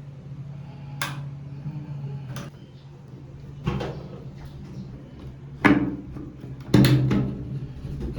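A series of knocks and bumps from cabinet doors and items being handled while a closet is rearranged, five in all, the last two loudest, over a steady low hum.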